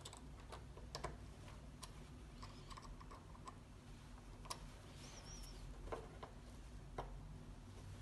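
Faint, irregular small clicks and taps of metal tools being handled: a drill bit, its depth collar and an Allen key against a steel rule, as the collar is reset to drill 1 mm deeper.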